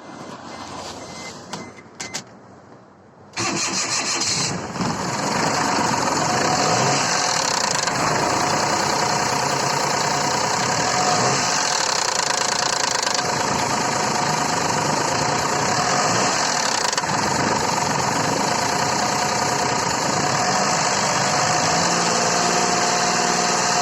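Toyota Duet engine started from cold, catching suddenly about three seconds in after a couple of clicks, then running steadily. This is the cold-start knock of the VVT-i sprocket (coupling) that the owner is diagnosing.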